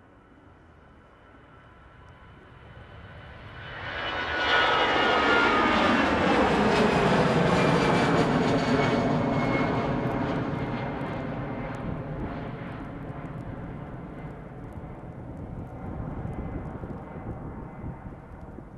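easyJet Airbus airliner's jet engines at takeoff power, growing louder as it runs past on its takeoff roll and lifts off, the engine whine dropping in pitch as it goes by. The roar then slowly fades as the jet climbs away.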